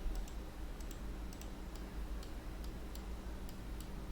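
Scattered light clicks of a computer mouse and keyboard at an irregular pace, over a steady low hum.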